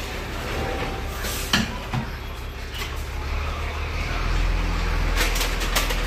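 Dump truck's engine running while its raised bed tips out a load of sand; the low engine drone grows louder about four seconds in, with a few short knocks along the way.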